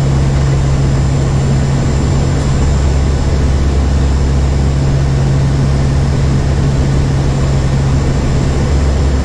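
Steady, loud drone of a four-engine turboprop hurricane hunter aircraft's engines and propellers in flight, a constant low hum over a wash of noise.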